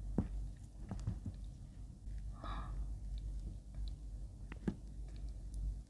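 Metal spoon spreading thick Lotus Biscoff cookie spread over soft white bread: quiet sticky smears with a few small clicks, and a soft breath about two and a half seconds in.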